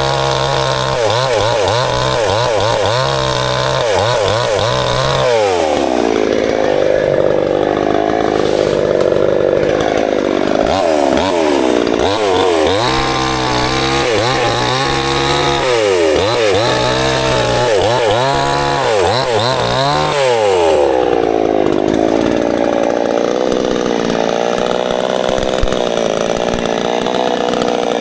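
Petrol chainsaw cutting through firewood logs, its engine pitch wavering up and down under load. About 21 seconds in it drops to a steadier, lower running.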